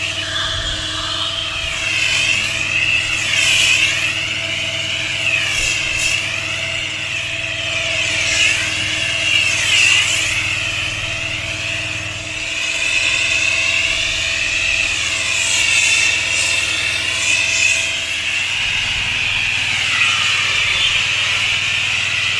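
A pressure washer runs steadily, feeding an X-Jet chemical sprayer that puts alkaline treatment down on block paving. Its spray hisses and swells and dips every couple of seconds as the lance sweeps back and forth, over a constant machine hum.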